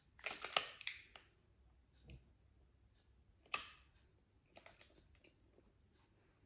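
Soft, scattered clicks and crinkles of a plastic Snickers wrapper handled close to the microphone: a cluster in the first second and one sharper click about three and a half seconds in.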